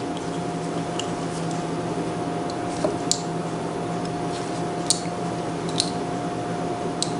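Small metal parts of a pressure washer pump's unloader valve clicking lightly as the spring and plunger are fitted into the valve body by hand, about six separate clicks. A steady hum runs underneath.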